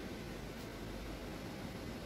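Steady, even hiss of background room tone, with no distinct events.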